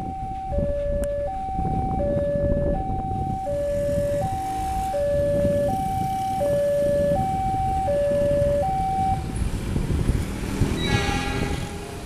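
Level-crossing alarm sounding an alternating high-low two-tone chime, about one pair every one and a half seconds, stopping about nine seconds in, over the low rumble of train wagons rolling past. A short horn-like call sounds near the end.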